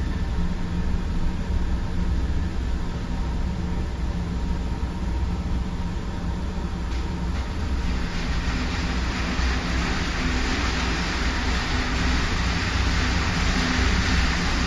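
Steady low rumble and hiss of an electric arc furnace shop, heard from inside the overhead crane cab while the freshly charged scrap burns in the open furnace. The hiss grows louder about eight seconds in.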